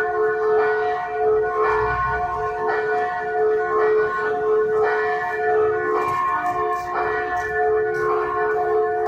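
Church bells ringing, struck over and over about once a second, their tones overlapping and ringing on between strikes.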